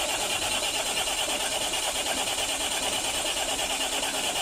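An engine running steadily with an even, rapid pulse.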